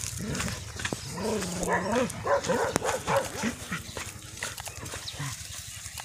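A dog barking in a quick run of calls through the middle seconds, one of them drawn out longer, with scattered light clicks around them.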